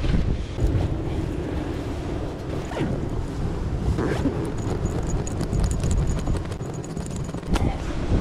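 Wind buffeting the microphone in a steady low rumble over sea surf, with a few brief rustles as a backpack is handled.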